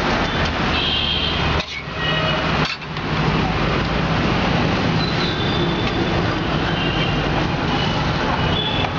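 Busy street traffic noise: vehicle engines running with a steady low hum and a general din of the road. It briefly drops out twice in the first three seconds.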